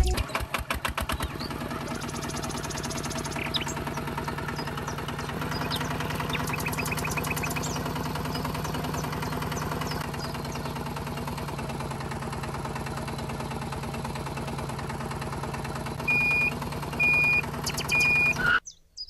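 Small motor and drivetrain of a DIY miniature tractor running steadily with a droning hum, with rapid ticking as it gets going at the start. Near the end come three short high beeps.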